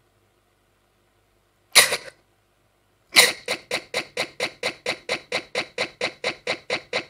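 Live electronic music: one short burst of sound, then about a second later a sampled sound repeated as a fast, even stutter loop, about five pulses a second.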